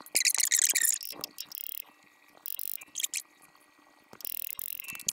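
Socket-wrench ratchet clicking rapidly for about a second, then a few shorter bursts of ratcheting with quiet gaps between them.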